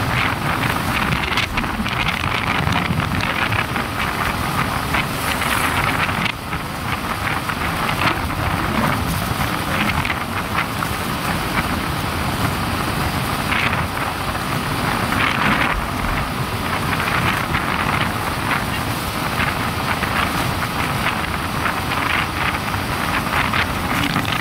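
Wind buffeting the microphone of a moving motorcycle, a steady rushing noise with the machine's road noise under it.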